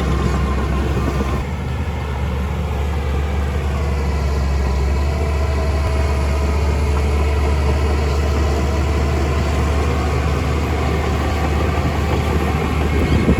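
Heavy diesel engine of a piece of earthmoving machinery running steadily, a deep continuous rumble with faint steady tones above it.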